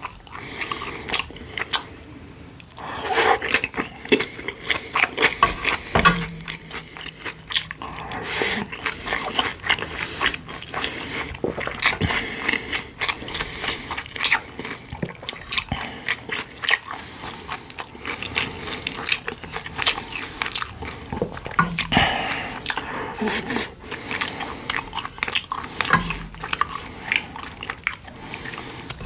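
Close-miked eating sounds of a meal of pork-bone soup and side dishes: wet chewing and biting, with many small irregular mouth clicks and smacks.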